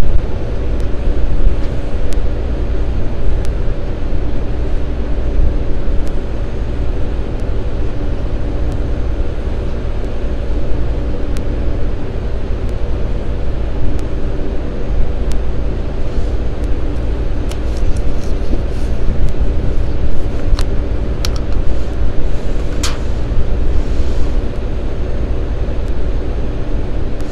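Steady hum of running machinery, a constant low rumble with several held tones, with a few light clicks in the second half.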